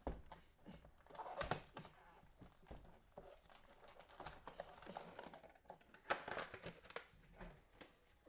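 Plastic cello-pack wrappers of trading cards crinkling and rustling as packs are handled and opened, with light clicks and taps from the cards.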